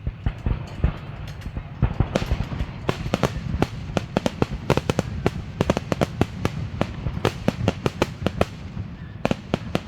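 Fireworks going off: a dense, irregular run of sharp cracks and bangs, several a second, thickest through the middle and thinning near the end.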